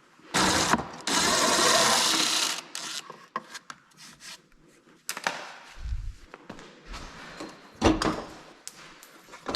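A power tool runs in one long burst of about two seconds, followed by scattered clicks, knocks and a few dull thumps of hands-on work on car body parts.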